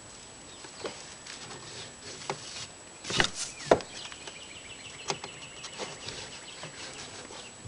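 Scattered knocks and clicks of a strap being worked loose on a homemade hand hay baler, the loudest two close together a little past the middle.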